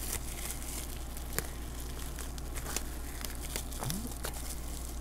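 Card deck packaging being handled: faint crinkling and small taps and clicks, over a steady low hum.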